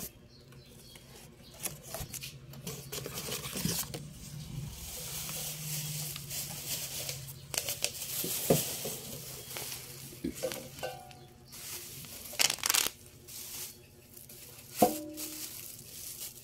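Plastic wrap and bubble wrap rustling and crinkling as a stainless steel meat-grinder bowl is unwrapped, with a few sharp knocks, some ringing briefly like metal; the loudest knock comes near the end.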